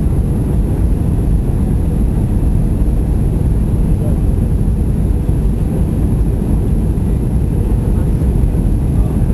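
Cabin noise inside an Airbus A320 on final approach: a loud, steady low rumble of the engines and airflow heard through the fuselage.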